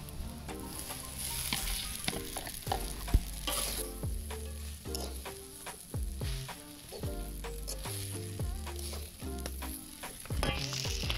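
Bami goreng frying in a wok as cooked noodles are tipped in and stirred: a steady sizzle with the metal spatula scraping and clanking against the wok, one sharp clank about three seconds in.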